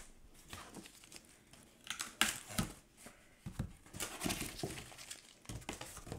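A cardboard shipping package being opened and handled: irregular rustling and scraping of the packaging with a few sharp knocks, starting about two seconds in.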